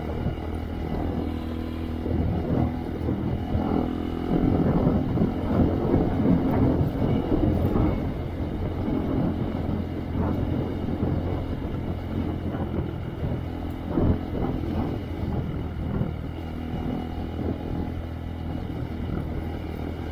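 Honda Monkey's single-cylinder engine running through a Yoshimura RS3 exhaust while riding a rough trail. Irregular knocks and rattles from the bike running over the uneven ground are heaviest in the first third, with one sharper knock about two-thirds of the way through.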